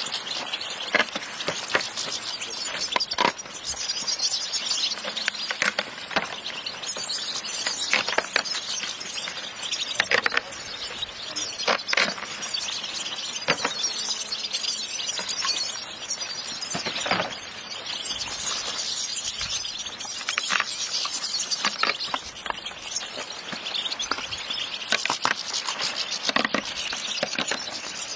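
A large crowd of caged European goldfinches chirping and twittering together without pause, with scattered sharp clicks and rustles from the birds and their wooden mesh-topped trays.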